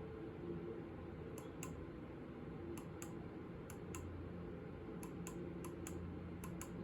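Faint clicking at a computer: about a dozen sharp clicks, mostly in quick pairs, over a low steady hum.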